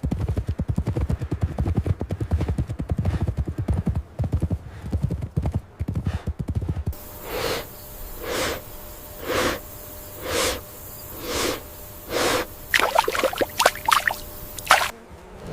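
Horse hooves thudding rapidly on the ground, followed by rhythmic heavy breaths about once a second and a short whinny near the end.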